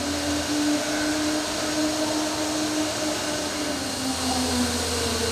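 Intermac Master 45 CNC stone work centre machining a stone block: the spindle and cutting tool make a steady whirring hiss with a humming tone that dips slightly in pitch about four seconds in.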